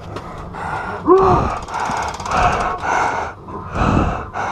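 Heavy, rapid breathing close to the microphone, with a short gasp about a second in. A brief rapid rattle of ticks follows the gasp.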